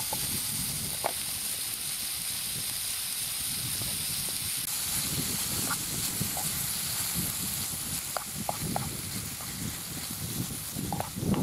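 Chicken and red pepper strips sizzling in a frying pan over a wood fire: a steady high hiss, with scattered light ticks and pops and a low rumbling noise from about halfway as the food is stirred with a wooden spoon.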